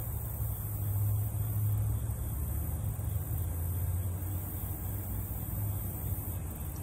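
Steady low rumble with a faint high hiss.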